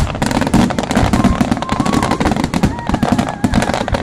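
Star mine fireworks barrage: a rapid, dense run of overlapping shell bursts and crackling, many bangs a second with no break.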